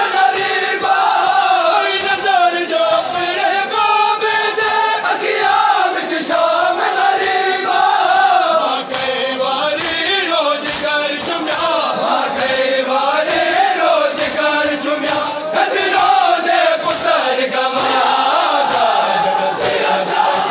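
Crowd of men chanting a mourning lament together in a steady, loud unison, with scattered slaps of hands beating on chests mixed in.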